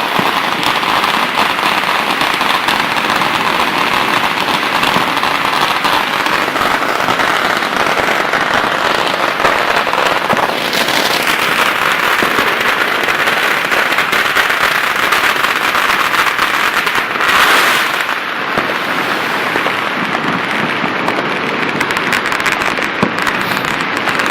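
Dense, unbroken crackle of many firecrackers and fireworks going off all around, with countless small pops running together. A louder burst comes about 17 seconds in.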